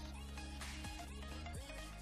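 Quiet background music with held notes and a few sliding low notes.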